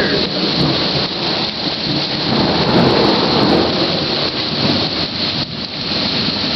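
Heavy rain pouring down steadily in a severe thunderstorm, a loud, even rush of rain noise.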